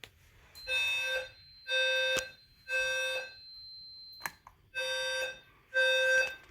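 Siemens SE speaker strobe sounding a recorded 520 Hz low-frequency alarm tone in the temporal-three evacuation pattern: three half-second beeps about a second apart, a pause of about a second and a half, then two more. The alarm was set off by a smoke detector sensing test smoke.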